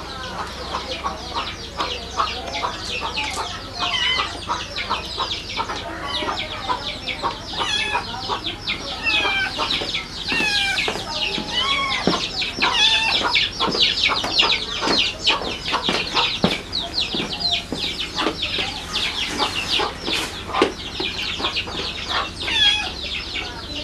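Small birds chirping rapidly and continuously, many short high peeps overlapping, several a second.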